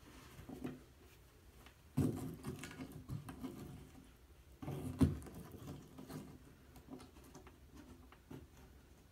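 A cloth rubbing and wiping around a bathtub's drain opening, cleaning off old plumber's putty, with a knock about two seconds in and another about five seconds in.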